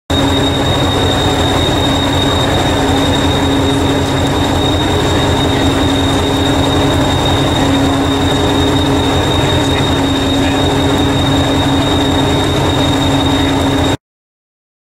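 Diesel multiple unit standing with its engine idling: a steady drone with a rapid low throb and a thin, steady high whine. It cuts off abruptly near the end.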